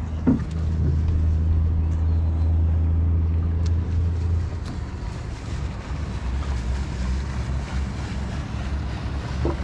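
The engine of a Vennekens Koral 40 sailboat running steadily under way, a low drone that eases off a little about four and a half seconds in, with wind noise on the microphone.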